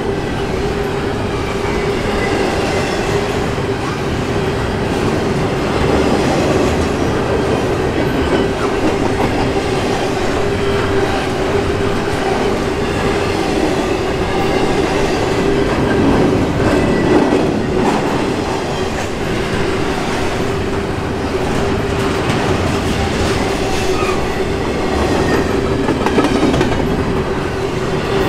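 Double-stack intermodal well cars of a freight train rolling past at speed: a continuous loud rumble and clatter of steel wheels over the rails, with a steady tone held above it.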